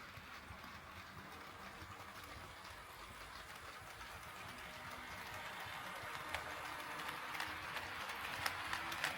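HO-scale model train running on Kato Unitrack, a steady hiss of motor and wheels that grows louder as it approaches. From about six seconds in, sharp clicks join it as the wheels pass over the track joints.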